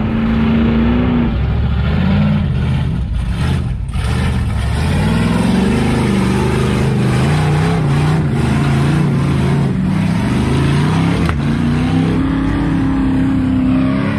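Engine of an off-road 4x4 revving, its pitch climbing and dropping several times.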